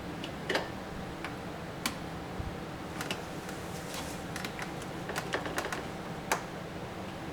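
Irregular light clicks and taps of plastic parts being handled, about a dozen scattered through, over a steady low hum.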